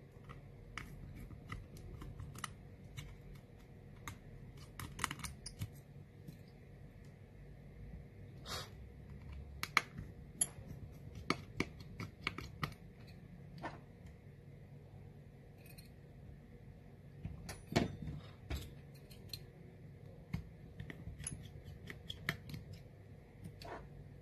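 Faint, irregular small clicks and taps of a screwdriver and tiny metal parts as the screws and connector bracket inside an iPhone X are undone and lifted out. The sharpest clicks come about ten seconds in and near eighteen seconds, over a faint steady hum.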